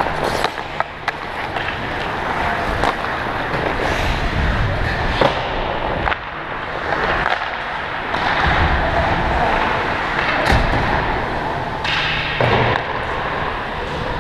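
Ice skate blades scraping and gliding on rink ice close to the microphone, with scattered sharp clacks from hockey sticks and the puck.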